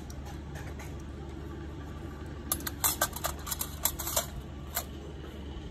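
Steel nail instruments clinking against each other and a metal tray: a quick run of sharp metallic clicks lasting under two seconds about halfway through, over a steady low hum.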